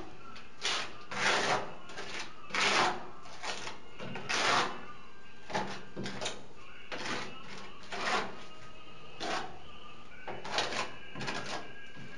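Small steel spatula scraping tile adhesive along the edge of a freshly set ceramic wall tile, in about a dozen short, irregular scrapes.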